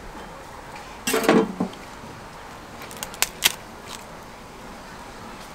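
Metal spatula and wooden block clattering against the crepe griddle: one loud clatter with a brief ringing about a second in, then a few sharp clicks about two seconds later.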